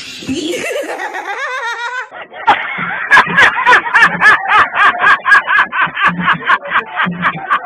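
A person laughing hard in a fast, even run of laughs, about four a second. It starts about two and a half seconds in, after a brief wavering pitched cry.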